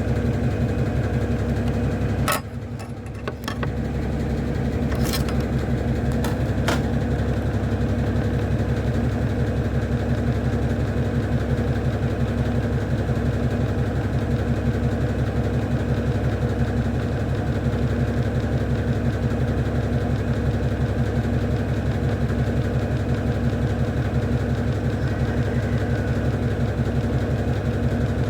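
Electrolux LAC09 washing machine spinning at high speed in its turbo drying function: a steady motor and drum hum with a fast low pulsing throb, the machine vibrating. A few sharp knocks in the first seven seconds, with the sound briefly dropping about two seconds in.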